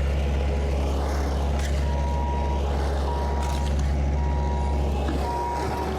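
A heavy machine's engine running with a steady low rumble, and from about two seconds in its backup alarm beeping four times as it reverses.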